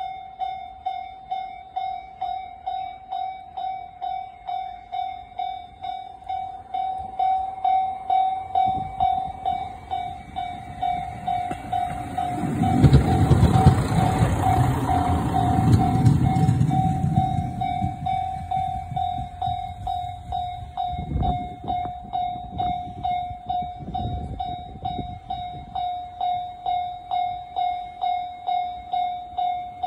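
Japanese level-crossing alarm ringing steadily at about one and a half strikes a second, while a KiHa 54 diesel railcar rumbles through the crossing. The train noise swells from about a third of the way in, is loudest just before the middle and fades again, leaving the alarm ringing on its own.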